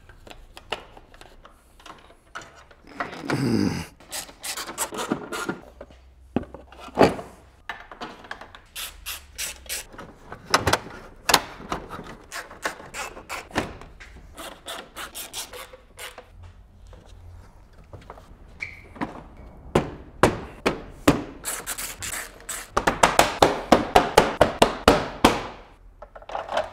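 Hand work on a car's front-end plastic trim and fasteners: scattered knocks, clicks and rubbing as parts are handled and fitted, with a scrape about three seconds in and a quick run of clicks, roughly six a second, near the end.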